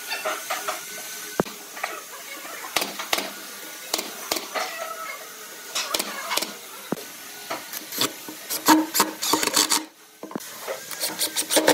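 Pneumatic nail gun firing nails through the feet of pine table legs into the tabletop: a series of sharp shots that come thick and fast in the later part, mixed with knocks of the wooden frame being positioned.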